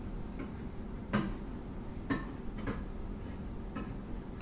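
OXO side-cutting hand can opener being turned on a soup can: a series of short clicks and ticks from the knob and gears, about every half second to a second, uneven in strength. The user doubts the blade is actually cutting the can.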